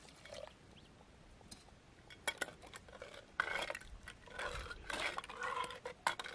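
Steel ladle stirring thin dal in an earthenware pot, clinking sharply against the pot and swishing through the liquid, starting about two seconds in.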